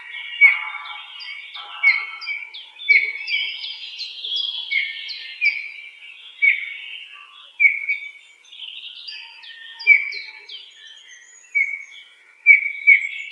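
Birds chirping and calling, several calls overlapping, with sharp downward-sliding notes about once a second.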